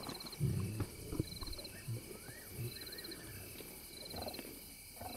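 Lions at a carcass at night making low growls and feeding noises, the strongest growl about half a second in, over night insects chirping in short high trills about every second and a half.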